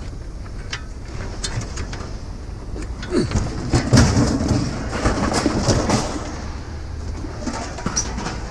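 Scrap metal clanking and scraping as pieces are handled on a loaded trailer, in a busy run of knocks starting about three seconds in and lasting a few seconds, over a steady low rumble.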